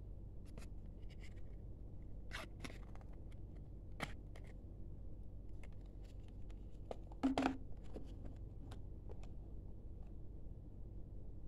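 Cardboard and paper handling: a smartphone's card box and its paper insert being lifted and shuffled, giving scattered light scrapes, rustles and clicks over a low steady hum, with a brief louder clatter about seven seconds in.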